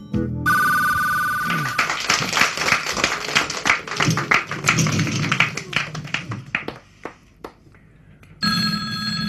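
A short telephone-bell trill, then about five seconds of audience clapping. After a brief lull, a telephone starts ringing near the end, a steady multi-tone ring that is answered just afterwards.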